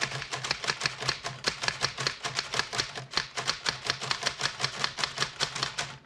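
Rapid typing on a Royal 10 manual typewriter: an even run of sharp keystrokes, about seven a second, that stops abruptly at the end.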